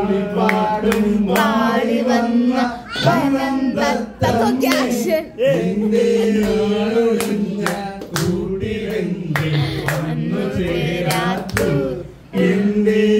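A man singing a song into a microphone over a loudspeaker, in long phrases with short breaths between them, while people clap along in a steady beat.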